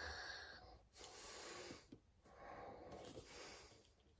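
A man's faint, heavy breaths, three in a row, as he gets emotional and close to tears.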